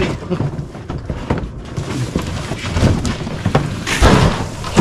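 Cardboard box scraping and rustling, with knocks and thumps from the folded cordless lawn mower being lifted out of it. The loudest burst of scraping comes about four seconds in, as the box is pulled clear of the mower.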